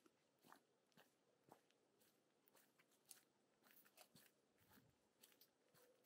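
Faint footsteps of a person walking at a steady pace, about two steps a second.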